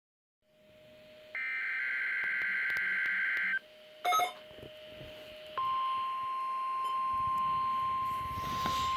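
NOAA Weather Radio Required Weekly Test coming through an HH54VP weather radio's speaker. About a second and a half in, a burst of warbling digital SAME data tones runs for roughly two seconds, and a short loud blip follows a little after four seconds. From about five and a half seconds on, the steady single-pitch 1050 Hz warning alarm tone sounds.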